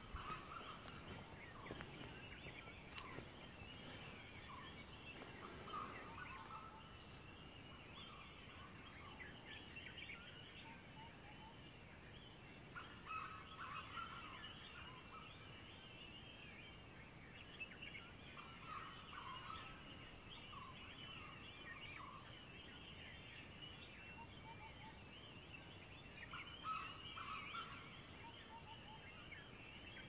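Faint dawn chorus of many forest birds: continuous high twittering, with louder bursts of lower chattering calls several times.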